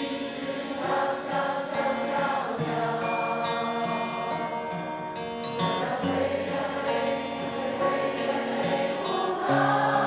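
Live band with acoustic guitar playing a Mandopop ballad while the concert audience sings the chorus together.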